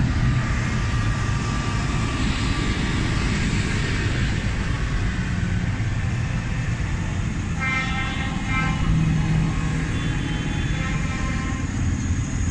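A procession of large farm tractors driving past, their diesel engines running steadily. A horn sounds twice, briefly, about eight seconds in.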